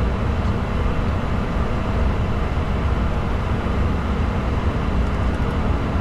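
Steady cockpit noise of a Bombardier Challenger 605 business jet in flight: an even rush of air and engine noise inside the flight deck, heaviest in the low rumble.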